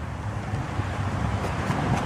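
Wind noise on the microphone: a steady low rumble with a hiss over it.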